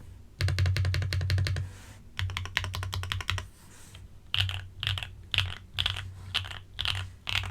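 Typing on a Monsgeek M3 mechanical keyboard with lubed Akko V3 Cream Yellow Pro linear switches, in a foam-filled case with a tape mod: two quick runs of rapid keystrokes, then slower separate key presses about two a second from about four seconds in.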